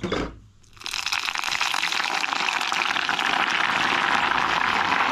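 Hot oil poured into a bowl of crumbled tandoor-baked bread, sizzling and crackling steadily as it soaks into the crumbs, starting about a second in.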